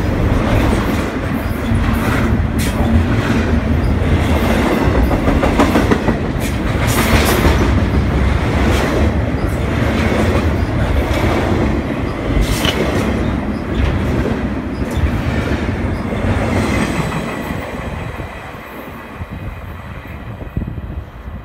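CN double-stack container freight train's cars rolling past close by: a steady rumble of wheels on rail with a repeated clickety-clack over the joints. The sound fades over the last few seconds as the end of the train moves away.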